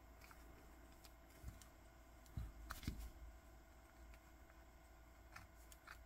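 Faint handling sounds: fingers working a sailcloth watch strap into a metal deployant clasp, with a few small clicks and rubs, most of them around the middle.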